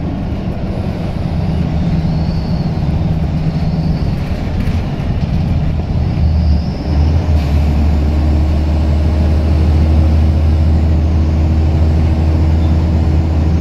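Scania L94UB Wright Solar bus's diesel engine working hard under heavy throttle, heard from inside the saloon. The deep engine note dips briefly about halfway through at a gear change, then settles into a steady, stronger drone.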